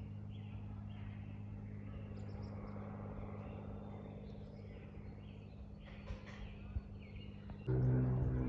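Birds chirping over a steady low hum; near the end a louder, deeper droning hum starts suddenly.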